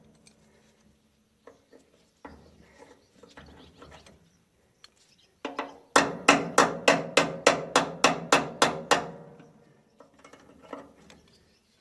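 A hand hammer striking the metal of a baler's chain drive while new chains are fitted: a quick run of about a dozen ringing blows, about four a second, past the middle. Before the blows come lighter clinks of tools and parts being handled.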